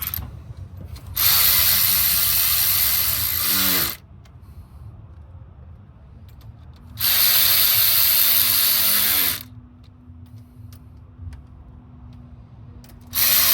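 Cordless battery ratchet running bolts in: three runs of about two and a half seconds, about a second in, about seven seconds in and near the end, each winding down with a falling whine when the trigger is let go.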